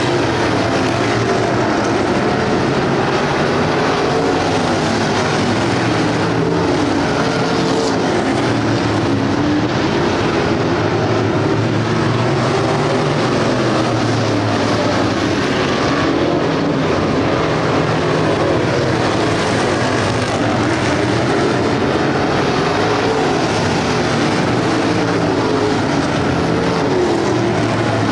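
A field of street stock race cars running hard around a dirt oval. Several engines overlap, their pitch rising and falling as the cars pass and get on and off the throttle.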